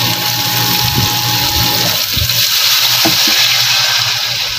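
Soy-sauce and calamansi marinade being poured into a hot pan of sautéed onions, hissing and sizzling steadily as the liquid hits the pan.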